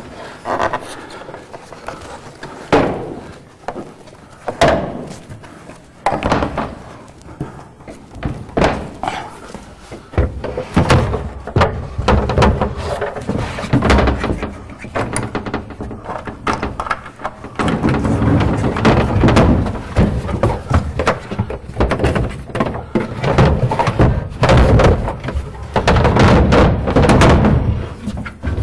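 Repeated wooden thuds and knocks as the sauna's ceiling panel is handled and set down onto the wall panels, getting busier and louder in the second half.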